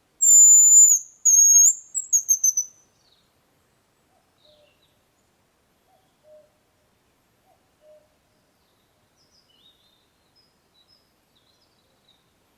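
Hazel grouse song: a high, thin whistle of two long held notes, then a quick falling trill of short notes, heard once near the start. It is the male's spring territorial song, given here in reply to a decoy call.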